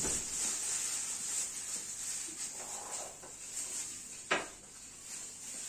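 Dry shredded kadayıf pastry rustling and crackling as it is pressed by hand into a small cup, with one sharp knock about four seconds in.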